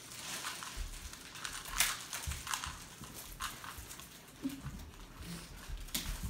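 Plastic wrap around a rolled foam mattress crinkling in irregular crackles as it is cut open and handled, with the loudest crackle about two seconds in.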